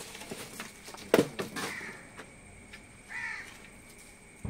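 A wooden plank knocking and scraping against rubble and junk as it is used to lever debris aside, with one sharp knock about a second in. A short caw-like call sounds a little after three seconds.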